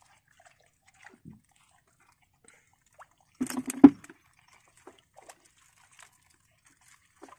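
Handling noises from a wet net crab trap being worked open by hand: faint scattered clicks and drips, then a short clatter about halfway through that ends in one sharp knock.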